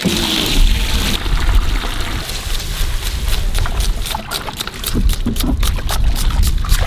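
Octopus pieces sloshed and rubbed by hand in water in a plastic crate, over a steady low rumble. About four seconds in, a fast run of knife strokes on a wooden board begins, slicing red onions.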